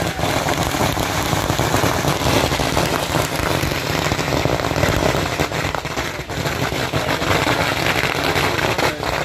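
Large bonfire of stacked wooden pallets burning, with dense, steady crackling of the flames.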